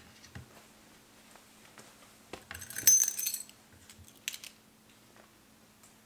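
A ring of keys jingling as it is lifted out of a wooden valet tray, loudest about halfway through, with a few light clicks and knocks of other small items being picked up. A faint steady low hum runs underneath.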